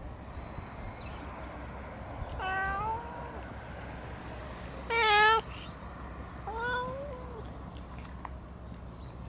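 Domestic cat meowing three times, a few seconds apart; the second meow is the shortest and loudest.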